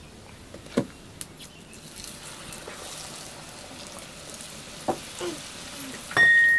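Oil bubbling and sizzling around a ring of sel roti batter frying in a wok, from about two seconds in. A sharp knock comes about a second in, and near the end a loud, steady, high whistle-like tone cuts in.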